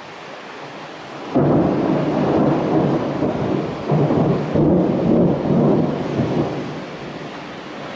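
Thunder during a thunderstorm: a clap breaks in suddenly about a second in and rolls on for several seconds in uneven swells, easing off toward the end, over the steady hiss of rain.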